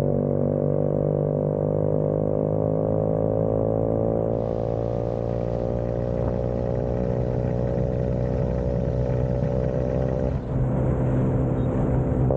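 Vespa scooter engine running steadily on the road, its pitch easing slowly down for about ten seconds before the note changes near the end.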